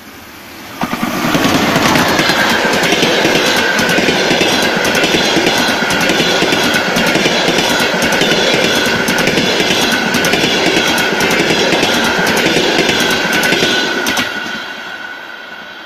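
ChS4t electric locomotive and its passenger coaches passing close at speed. The noise jumps up suddenly about a second in as the locomotive goes by, then the coaches' wheels run past with a dense clickety-clack over the rail joints and a steady high tone. It dies away after about fourteen seconds as the last coach passes.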